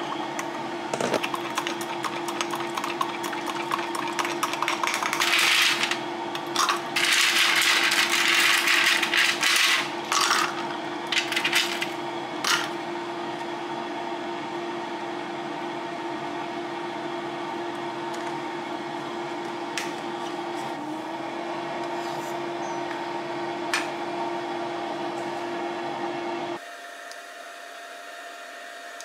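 A metal spoon stirring and clinking against a glass mug over a steady appliance hum, with louder stretches of stirring noise about five to twelve seconds in. Near the end the hum stops suddenly and only quieter room tone is left.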